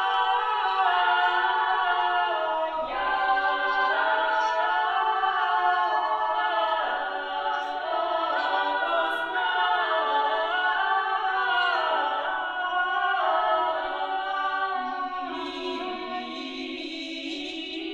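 Small ensemble of women's voices singing a cappella in harmony: long held chords, with a new phrase every few seconds.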